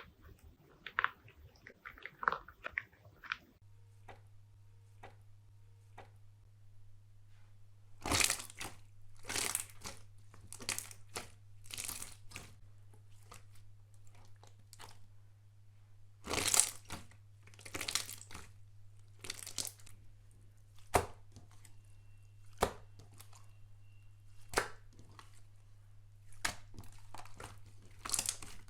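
Slime being squeezed and pressed by hand, giving crackling, crinkly pops. After a few seconds of small clicks, loud crackling bursts repeat every second or two.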